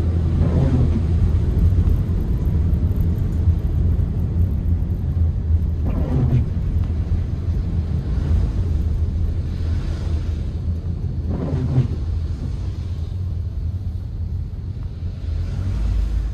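Steady low road and engine rumble heard inside a Toyota Calya's cabin while it drives, with a few brief swells of louder noise along the way.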